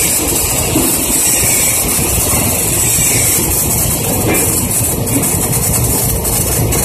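Stick-welding arc of a 1/8-inch 7018 electrode burning steadily on steel plate, a continuous rough hiss strongest in the highs, over a steady low rumble.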